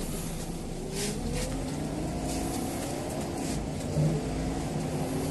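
Scania CL94UB city bus heard from inside the passenger cabin: the engine and drivetrain run with a rumble and a whine that rises in pitch and steps down several times as the bus accelerates through its gears. There is a short hiss about a second in and a low thump about four seconds in.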